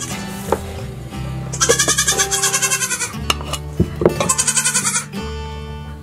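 Nigerian Dwarf goat bleating twice with a quavering voice: a long bleat about a second and a half in, and a shorter one about four seconds in.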